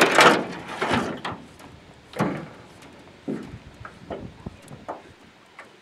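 Fly line being stripped in by hand in a series of short pulls, a scraping swish with each pull, the first one loudest and the later ones fainter.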